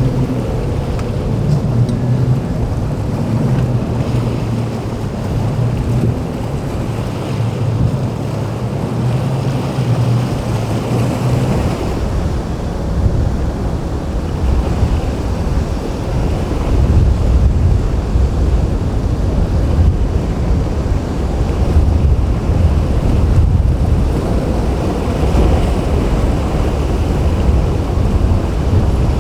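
A boat's motor drones with a steady low hum for about the first eleven seconds, under surf and wind. After that the hum fades, leaving wind buffeting the microphone in a rumble that rises and falls, with waves breaking.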